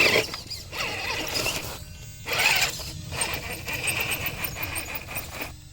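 RC rock crawler's electric motor and drivetrain whining in short stop-start spurts as it works its way up the hill.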